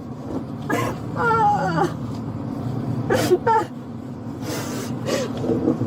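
A distressed young woman whimpering and sobbing in short, wavering cries, over the steady low rumble of a vehicle.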